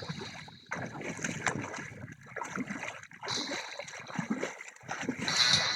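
Water sloshing and splashing irregularly, with wind on the microphone.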